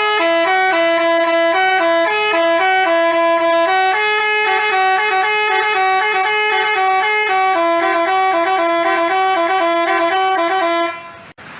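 Basuri telolet horn, an Indonesian multi-tone bus horn, playing a quick stepping melody of a few notes over and over. It cuts off suddenly near the end.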